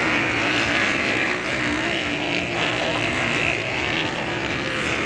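Motocross dirt bike engines running and revving on the track, a steady mix of wavering engine notes.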